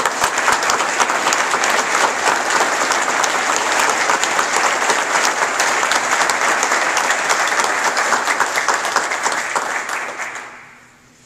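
A roomful of audience applauding, a dense steady clapping that fades away near the end.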